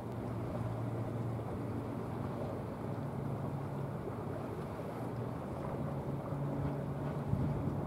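Low, steady drone of a passing container ship's diesel engine, a hum that steps slightly higher in pitch a few seconds in.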